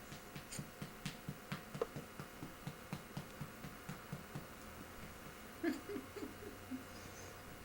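Soft, steady pats on a baby's back to bring up a burp, about four a second. About two-thirds of the way through, the baby makes a few short vocal sounds.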